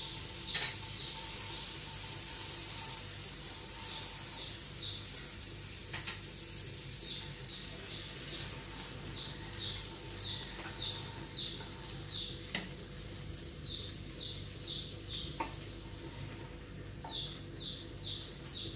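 Butter sizzling on a hot grill pan under a toasting sandwich, loudest in the first few seconds and easing off, with a few light clicks of a spatula against the pan. A bird chirps in short runs of quick, falling chirps throughout.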